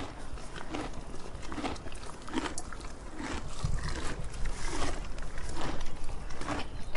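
A donkey eating, chewing its food with a regular crunch a little more than once a second.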